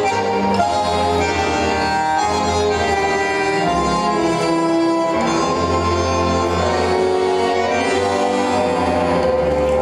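Argentine tango music playing: an orchestral tango recording with bandoneon and strings, going on without a break.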